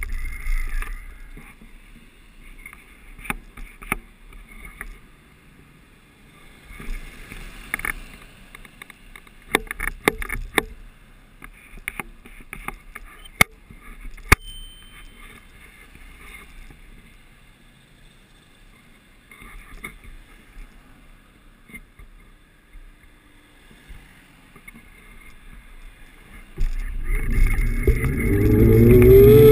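Quiet street background with scattered small clicks and knocks. Near the end a car passes close by and accelerates, loud, its engine note rising in pitch.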